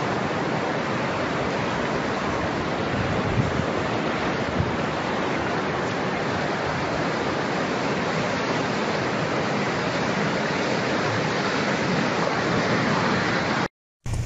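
Rushing floodwater making a steady, dense rushing noise without let-up. It stops abruptly near the end.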